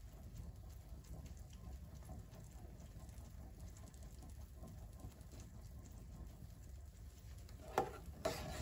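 Faint stirring of thick cornmeal porridge in a stainless steel pot: a soft, irregular patter of the utensil moving through the porridge, with one sharper knock near the end.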